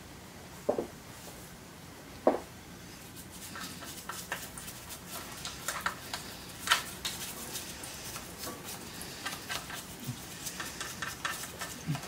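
Scattered light clicks and taps of a brush and gloved fingers working against metal parts inside the arm casting of a Bernina 217 industrial sewing machine as it is cleaned out with solvent. There are two sharper knocks in the first few seconds, then many small irregular clicks.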